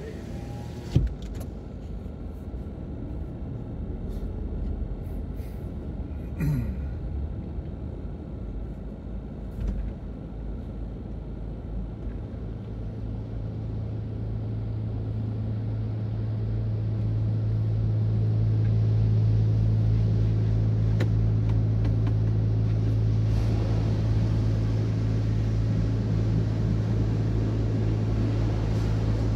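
Automatic tunnel car wash heard from inside the car: a low rumble, then from about twelve seconds in a steady low hum from the wash machinery that grows louder, with water spray hissing on the windshield toward the end.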